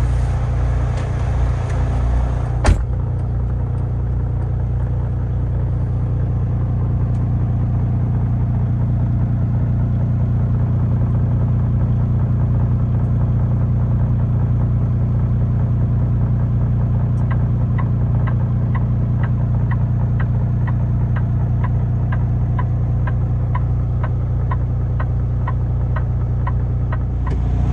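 Kenworth semi-truck's diesel engine idling steadily, heard from inside the cab, with a sharp click about three seconds in. In the last ten seconds the flasher ticks steadily, about two a second, as the lights are run through a pre-trip light check.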